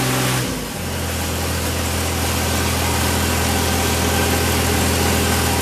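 EMD 567 diesel engine of a 1953 General Motors locomotive throttling back, its pitch falling within about the first second, then idling steadily.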